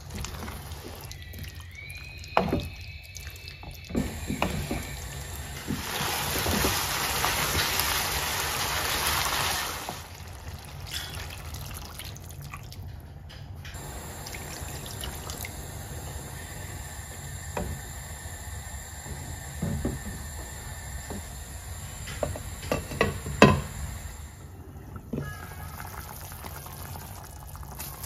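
Water poured from a steel cup into a pan of simmering chicken masala, a steady splashing pour of about four seconds, between scattered knocks of a wooden spoon against the pan.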